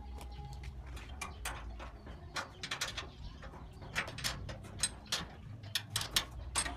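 Irregular metallic clicks and clinks of a wrench on the engine's mounting bolts and nuts, several a second at times, over a low steady hum.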